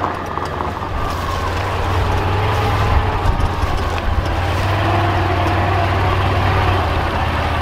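Vehicle engine running steadily as it drives across rough, rooted-up pasture, with a few knocks from the bumpy ground around three seconds in.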